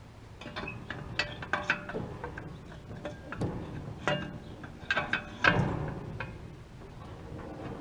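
Metal clanking and knocking as a pry bar is worked against the seized mechanism of a Massey Ferguson hay baler: a string of sharp knocks and rattles, the loudest a little past the middle. The mechanism is stuck solid and does not turn.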